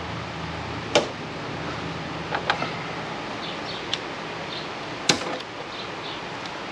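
A few sharp knocks and clicks of parts and tools being handled at a workbench, the loudest a little after five seconds in, over a steady low hum.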